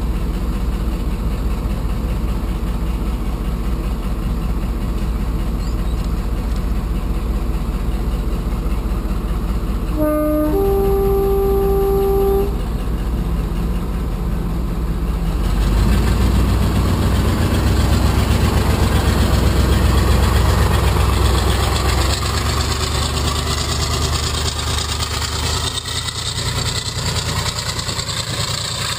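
Class 35 Hymek diesel-hydraulic locomotive idling, then sounding its two-tone horn about a third of the way in: a short lower note, then a longer higher one. A few seconds later the engine opens up loudly as it pulls away with its train, and the rumble of the coaches rolling past follows.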